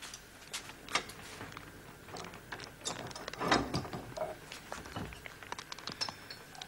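Kitchen utensils and pots handled on a table: scattered light clinks and knocks of ladles against pots, with a louder scrape about three and a half seconds in.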